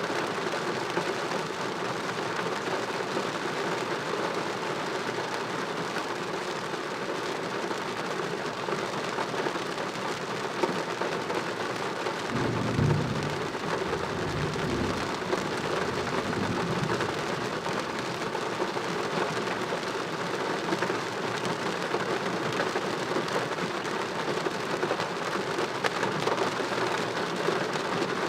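Heavy rain falling steadily during a thunderstorm, with a low roll of thunder rumbling for a few seconds about halfway through.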